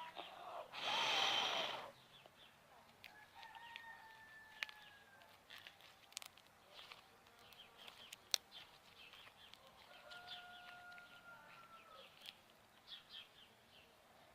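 A rooster crowing once, loudly, about a second in, followed by fainter drawn-out fowl calls and scattered sharp clicks.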